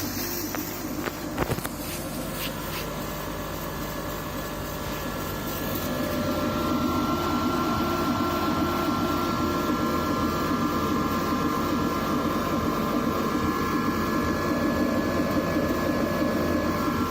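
KAMACH 1060 CO2 laser cutting and engraving machine running, with a steady fan-like hum and a high whine. It grows louder from about six seconds in, and there are a couple of sharp clicks about a second and a half in.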